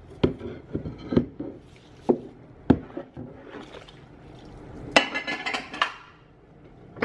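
Ceramic bowls and plates knocking and clinking as they are hand-washed in a stainless steel sink of soapy water: a handful of separate knocks, then a short run of ringing clatter about five seconds in.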